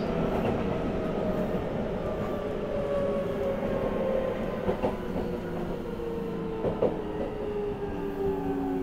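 Seibu 6000 series train's Hitachi GTO-VVVF inverter and traction motors heard from inside the car, their whine falling slowly in pitch as the train slows toward its station stop. Wheel and rail running noise underneath, with a couple of rail-joint knocks.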